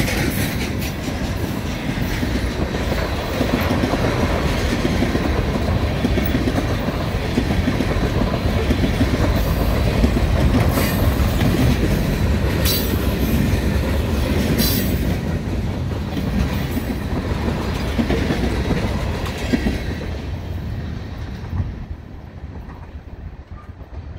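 Freight cars of an Ohio Central train rolling past, wheels clattering on the rails, with a few sharp high sounds midway. The noise dies down over the last few seconds as the end of the train goes by.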